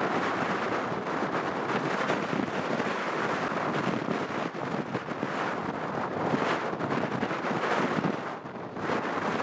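Strong storm wind gusting against the microphone: a loud, rushing noise that swells and eases, dropping briefly near the end.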